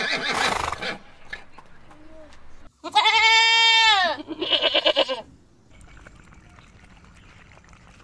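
Goats bleating: one long call about three seconds in, falling at its end, then a shorter quavering bleat.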